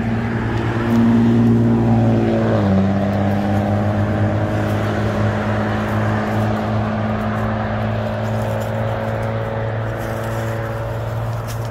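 An engine running steadily at idle, its pitch dropping a step about two and a half seconds in, then holding.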